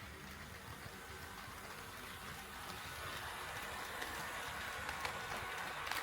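HO scale model train rolling on KATO Unitrack, its running noise growing louder from about halfway through as it approaches, with light rail-joint clicks starting near the end.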